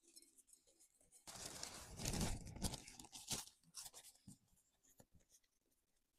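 Clear plastic wrap crinkling and rustling as it is handled over dough balls, loudest for about two seconds, then a few soft rustles and clicks.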